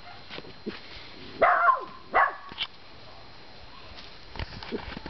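Puppy yipping twice, short calls that fall in pitch, about a second and a half in and again shortly after.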